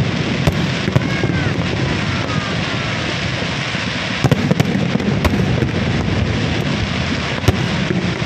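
Fireworks display: a steady crackle and rumble from bursting aerial shells and ground fountains, cut by sharp bangs of shells going off, a cluster about four to five seconds in and the sharpest near the end.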